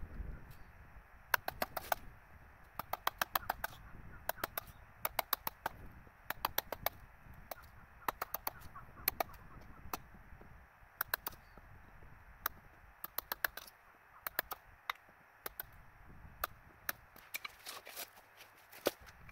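Hammer striking a chisel in quick bursts of several sharp taps, with short pauses between the bursts.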